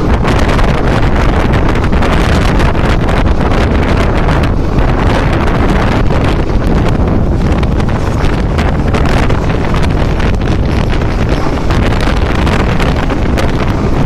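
Wind buffeting a phone microphone held out of a moving passenger train, over the steady rumble of the train running along the track. It is loud and unbroken throughout.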